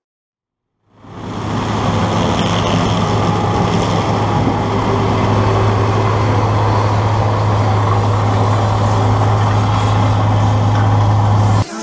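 New Holland CR 9080 combine harvester running steadily while harvesting maize: a constant low engine drone under a broad rushing noise. It fades in about a second in and cuts off just before the end.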